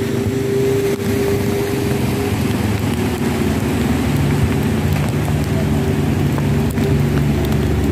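Heavy rain falling steadily, with the hum of vehicle engines, motorcycles riding through floodwater on the road. The engine hum shifts lower about halfway through.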